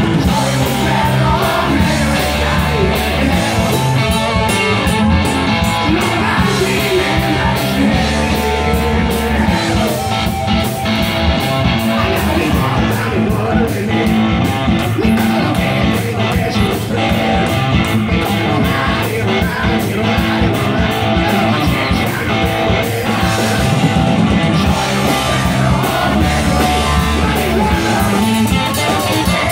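Live rock band playing loud, with distorted electric guitars and a steady drum beat, and a voice singing over them.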